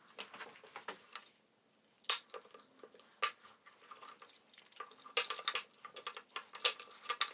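Handling noise of two sapele wood pieces and blue painter's tape being pressed and shifted together on a workbench: irregular taps, clicks and crinkles, with a sharp knock about two seconds in and a flurry of louder clicks after about five seconds.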